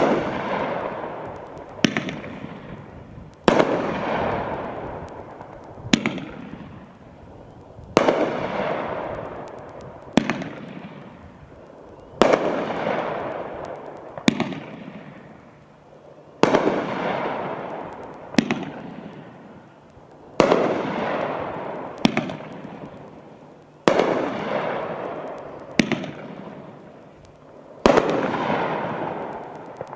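Whoop-Ass (Zippidy Zam) 500-gram fireworks cake firing shot after shot: about fifteen loud bangs, roughly one every two seconds, each followed by a long fading tail.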